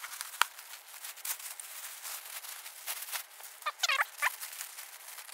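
Sped-up audio of a telescope being unwrapped from a plastic bag and padded cover: rapid plastic rustling and crinkling, with a sharp click just after the start. About four seconds in come brief high-pitched bursts of sped-up voice.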